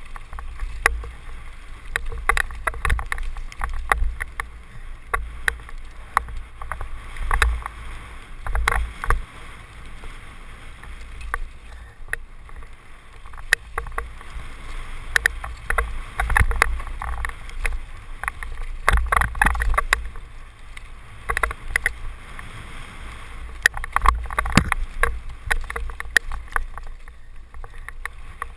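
Mountain bike descending a rough, rocky downhill trail, heard from a helmet camera: wind rumbles on the microphone while the bike rattles and knocks over stones and bumps in quick, irregular clatters.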